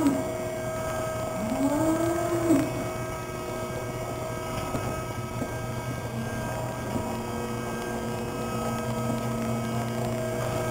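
Dairy cows mooing: the end of one moo at the start and a second full moo about a second and a half in, each rising then falling in pitch. Both are heard over a steady machine hum that continues after them.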